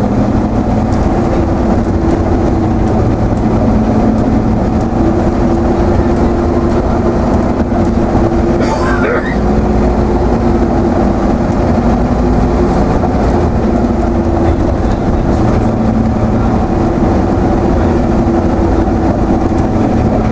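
Routemaster coach's diesel engine running under way with a steady drone, heard from the front of the bus. A short wavering squeal rises about nine seconds in.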